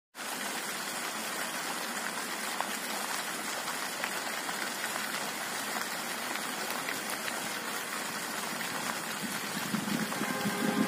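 Small fountain jets in a courtyard pond, giving a steady splashing hiss of falling water. A low rumble comes in near the end.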